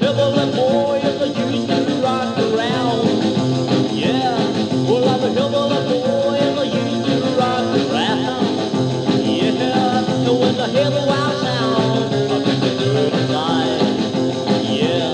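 Rockabilly recording in an instrumental stretch: a guitar lead playing sliding, bending notes over the band's steady beat.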